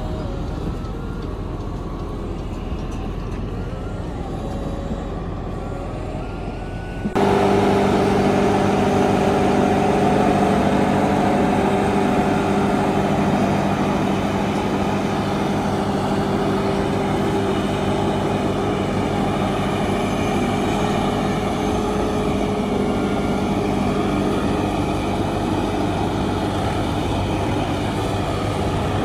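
A tractor engine runs for the first few seconds. About seven seconds in, the sound cuts abruptly to a louder, steady machine sound: a New Holland self-propelled forage harvester running as it chops standing maize for silage and blows it into a tractor trolley, with the tractor's engine alongside.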